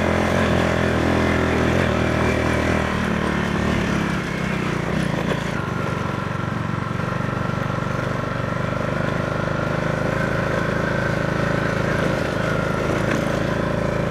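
Motorcycle engine running while being ridden on a road. Its steady note shifts about three to four seconds in.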